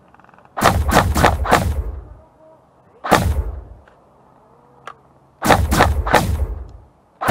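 Specna Arms G36 blowback airsoft electric rifle firing short bursts: a quick string of about four shots, a single shot about three seconds in, another string of about four, and one more shot at the very end.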